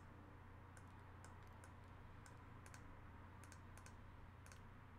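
Faint computer mouse clicks, a dozen or so at an irregular pace, as pixels are toggled on a character grid, over a low steady hum.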